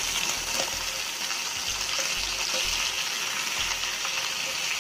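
Vegetables tipped into a hot wok of stir-frying pork, bok choy and leafy greens landing in the hot oil and sizzling with a steady hiss.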